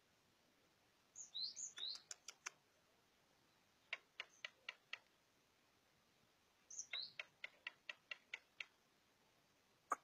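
Javan myna (jalak kebo) calling: twice a high whistle sliding downward, each followed by a quick run of sharp clicks, with a separate run of about five clicks between the two.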